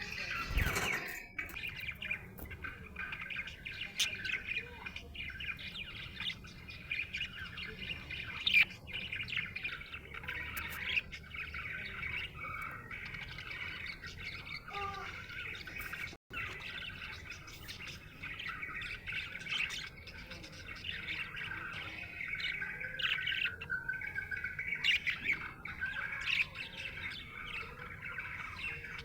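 Budgerigar chirping and chattering continuously in a busy, high-pitched warble, with a short low thump right at the start.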